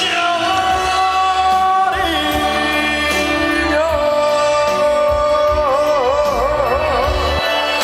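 Male trot singer holding out long sung notes over instrumental backing, gliding between pitches and ending on a note with a wide vibrato.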